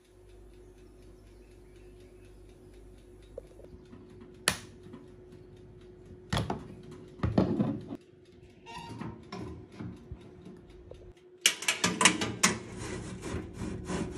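Countertop toaster oven with a faint steady hum, a sharp click a few seconds in, and knocks as the door handle is taken. Near the end the glass door opens and the wire rack is pulled out with metal tongs, a quick run of clattering metal clicks and rattles.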